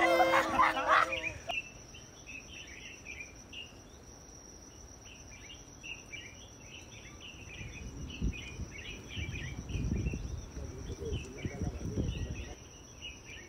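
Outdoor ambience of a steady high-pitched insect drone, like crickets, with scattered bird chirps throughout. Irregular low rumbling comes in during the second half.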